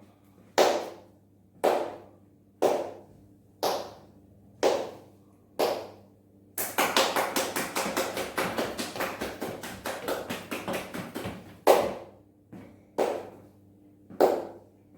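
A person clapping hands: slow, even claps about one a second, then fast clapping of about five claps a second for some five seconds, then slow claps again.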